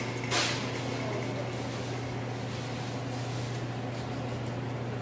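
Steady low hum and hiss of kitchen equipment and a lit gas burner, with a short rustling pour about half a second in as sugar is tipped from a steel bowl into a pot of water.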